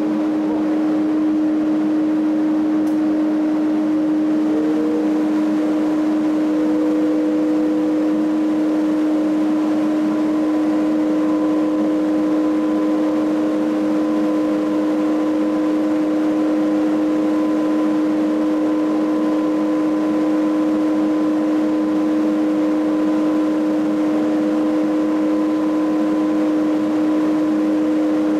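Fan-driven fogging machine running with a steady electric hum made of several held tones; a higher tone wavers and then settles about five seconds in.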